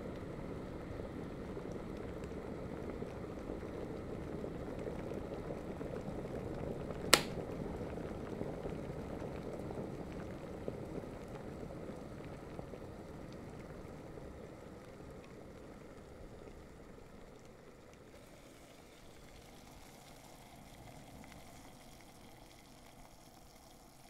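Water boiling in an electric kettle, a dense bubbling rumble. A single sharp click comes about seven seconds in, and the boil then slowly dies down and grows faint.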